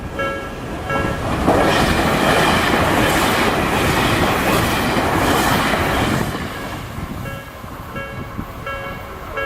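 Japanese railway level-crossing alarm ringing its repeated ding about twice a second. About a second and a half in, a train passes over the crossing, its wheels clattering over the rail joints for about five seconds and drowning out the alarm. The alarm is heard again as the train clears.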